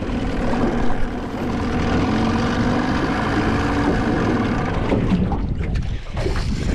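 Small boat's outboard motor running steadily at trolling speed, a low even hum that drops away about five seconds in, leaving wind and handling noise.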